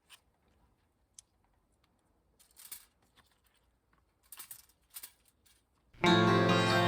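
A few faint, short rustles and clicks of handling noise, then background music with plucked strings starts loudly about six seconds in.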